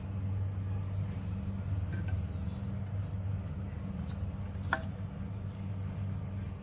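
Raw meat pieces being pressed and arranged by hand in a clay pot: faint soft squishing and ticks, with one sharper click a little after halfway. A steady low hum runs underneath throughout.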